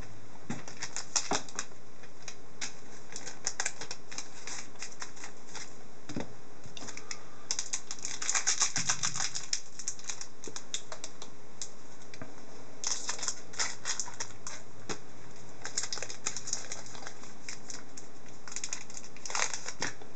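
Upper Deck Artifacts hockey card pack being handled and opened: the wrapper rustles and the cards click and slide against each other in short clusters every few seconds.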